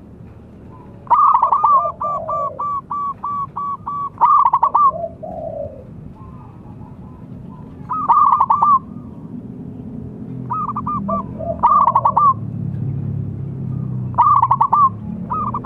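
Zebra dove (perkutut) cooing: a long run of rapid staccato coo notes about a second in, then shorter bursts of the same notes every few seconds. A low hum lies underneath, stronger in the second half.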